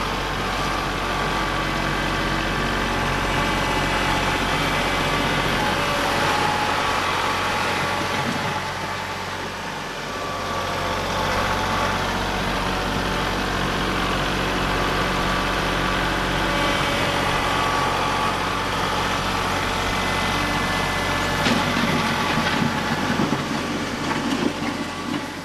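Kubota compact tractor's diesel engine running steadily while the tractor works the dirt, with a rougher, noisier stretch near the end.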